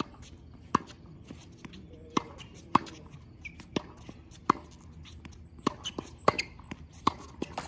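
Tennis ball struck back and forth with rackets in a net volley drill on a hard court: a string of sharp pops, about one every half second to a second.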